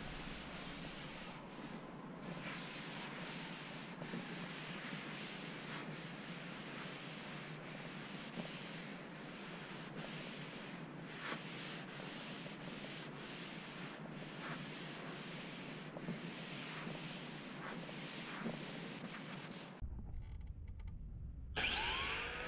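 A cloth rubbing walnut stain into a poplar tabletop by hand, making a swishing hiss in steady back-and-forth strokes a little over a second apart. It stops abruptly about two seconds before the end.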